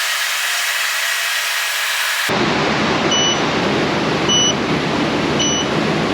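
A steady hiss that cuts off suddenly a little over two seconds in, followed by steady shop noise. Through that noise, a short electronic beep repeats about once a second, four times.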